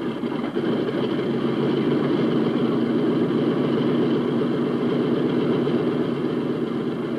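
B-17 Flying Fortress's Wright R-1820 Cyclone radial engine idling steadily at about 1,000 RPM, just after starting.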